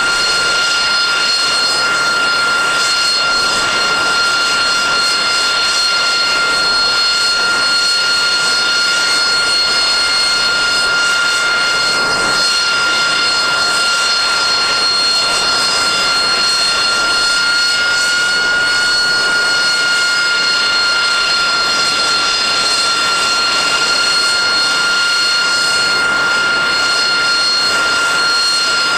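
AV-8B Harrier II Plus's Rolls-Royce Pegasus turbofan running at a steady setting: a high, constant whine of several held tones over a rushing roar.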